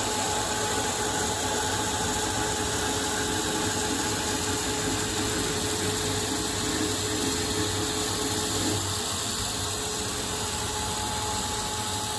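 Proto-Trak CNC lathe taking a light single-point ACME threading pass on a 4140 steel bar, with the coolant mist sprayer hissing steadily over the machine's hum. One of the steady tones in the mix drops out about nine seconds in.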